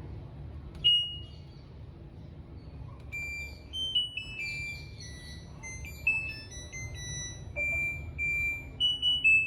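LG front-load washing machine control board's buzzer: one short beep about a second in, then from about 3 s a short electronic tune of beeps stepping up and down in pitch, the chime that marks the end of the test program. A steady low hum runs underneath.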